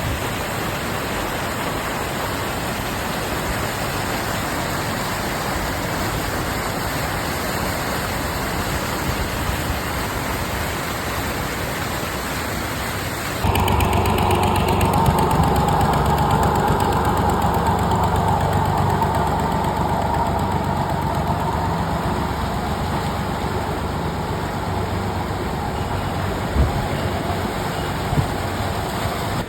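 A steady rushing hiss of heavy rain and running floodwater. About halfway through it cuts abruptly to a louder, steady vehicle engine hum.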